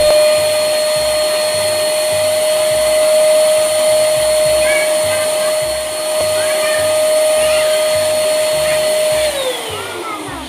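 Electric balloon pump running steadily, a constant motor whine over rushing air as it inflates a clear balloon. About nine seconds in it is switched off and the whine falls in pitch as the motor spins down.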